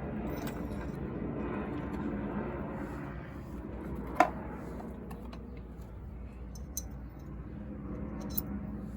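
A few sharp metallic clicks and clinks, one loud one about four seconds in and smaller ones later, over a steady low hum.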